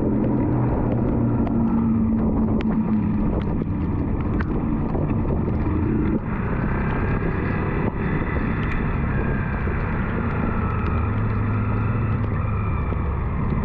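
Yamaha WR155's single-cylinder four-stroke engine running as the motorcycle rides on a rain-soaked road, under a steady hiss of wind and wet tyres, with light ticks of raindrops hitting the camera. After a brief dip about halfway through, the engine note settles lower as the bike eases off.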